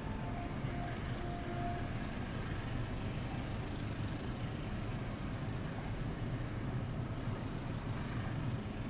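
Argo Parahyangan passenger train pulling out of the station, its coaches rolling along the track with a steady low rumble.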